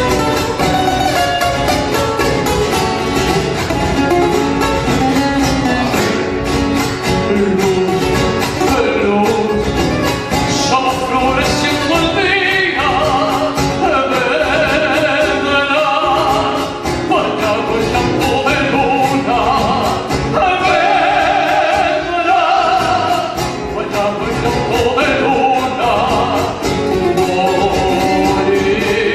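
Latin American folk song: guitar accompaniment with a voice singing, the singing most prominent from about twelve seconds in.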